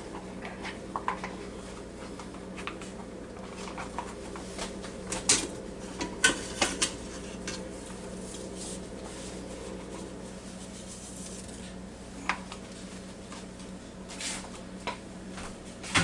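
A scoop clinking and scraping against the Ninja Foodi Deluxe's cooking basket as air-fried potatoes and carrots are lifted out. The clatters come scattered, with a cluster of sharper knocks around the middle, over a steady low hum.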